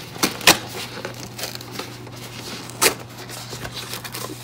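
Glued cardboard flap of a toy box being pried open and torn, with papery crackling and a few sharp snaps, the loudest about half a second in and another near three seconds.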